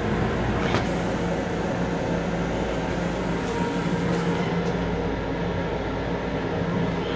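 Steady interior noise of an MTA Long Island Rail Road M7 electric railcar: a low rumble and hiss with a steady hum through it, and a faint click about a second in.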